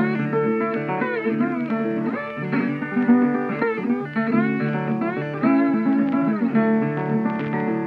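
Guitar music with notes that bend and slide in pitch, in a blues style.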